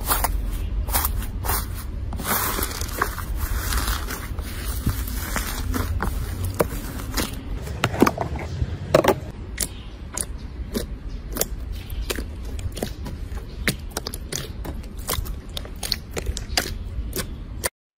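Slime being pressed and squished by hands, with dense, irregular crackling and popping clicks, from foam-bead slime at first. A few louder pops come about halfway, and the sound cuts off suddenly near the end.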